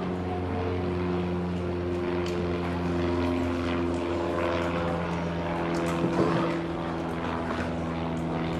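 Steady engine drone made of several held tones that hardly change in pitch, with a short knock about six seconds in.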